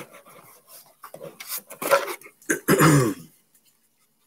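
A man coughing and clearing his throat, with the loudest, throatiest burst about three seconds in, over light rubbing of cards being handled.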